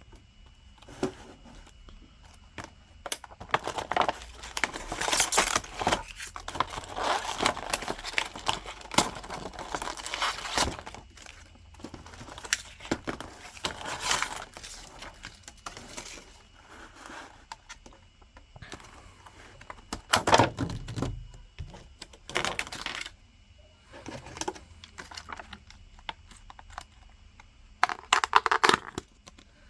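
Plastic food-delivery packaging being handled and opened: irregular crinkling, rustling and tearing, with a few knocks of containers being set down.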